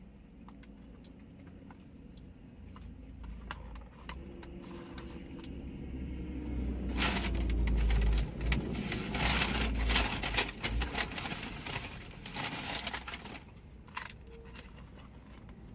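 Crackling and crinkling of paper fast-food packaging being handled, sparse at first and then dense and loudest for several seconds in the middle, with dull knocks from handling.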